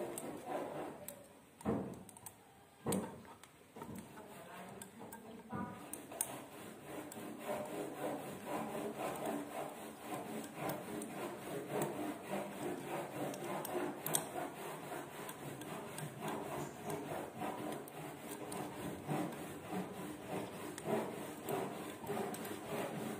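Hex key turning the small screws in the metal flange of a Ka-band VSAT transceiver feed part: close metal-on-metal handling with many fine clicks and rubbing. The first few seconds are quieter apart from two knocks, about two and three seconds in; from about six seconds in the clicking runs on steadily.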